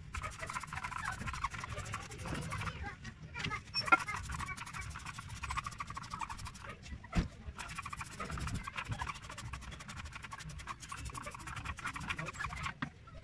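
Gloved hands rubbing and handling a rubber intercooler hose while degreaser is squirted into it from a trigger spray bottle, a steady scratchy rustle. There are two sharp clicks, about four and seven seconds in.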